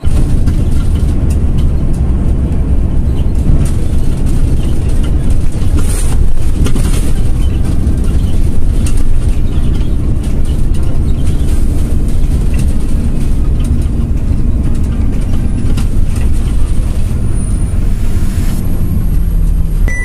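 Engine and road noise inside a moving city bus: a loud, steady low rumble.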